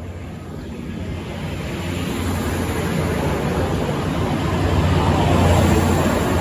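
V/Line VLocity diesel multiple unit departing under power, its diesel engines running hard. The noise grows steadily louder as the train draws nearer.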